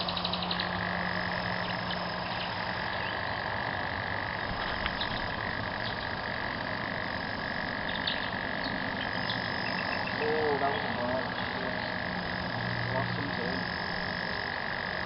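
A chorus of frogs calling steadily as a continuous high trilling hum, with a few brief lower calls about ten seconds in.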